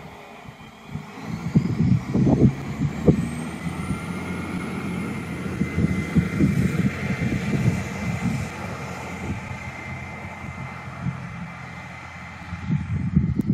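Stadler Citylink tram-train pulling away and accelerating, its traction drive whining with a pitch that climbs steadily for the first few seconds over a steady hum, then fading as it moves off. Wind buffets the microphone with gusty low rumble throughout.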